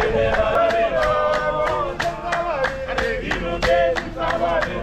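A group of voices singing and chanting over a steady rhythmic beat of sharp strikes.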